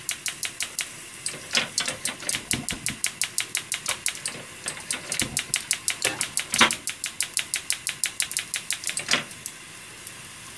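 Gas stove's fish-grill spark igniter clicking rapidly, about seven sharp clicks a second, while the ignition button is held to light the grill burner. A few louder knocks stand out, the loudest about two-thirds of the way through, and the clicking stops shortly before the end.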